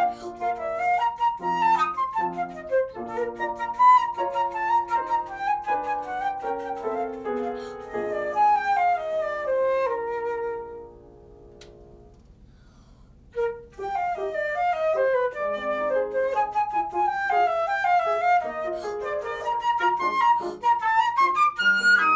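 Concert flute playing a melody over upright piano accompaniment. About eleven seconds in, the music dies away into a pause of two to three seconds, then the flute comes back in.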